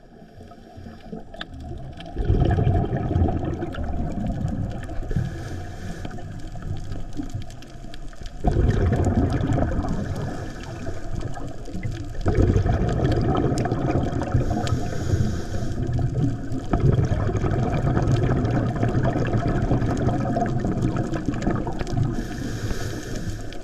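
Scuba breathing heard underwater: long spells of exhaled bubbles from a regulator come every few seconds, with a brief high hiss of inhalation between some of them.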